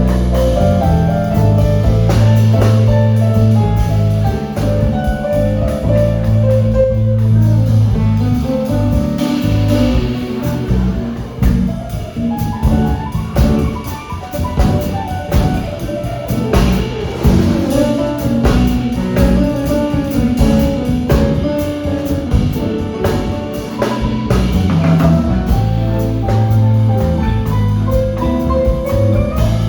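Jazz band playing an instrumental passage: drum kit strokes over bass and melodic notes from the piano and guitar. The drum strokes grow busier through the middle.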